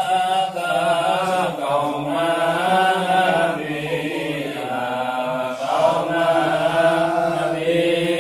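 A group of men chanting sholawat together, Arabic devotional praise of the Prophet, in long sung phrases of about two seconds each.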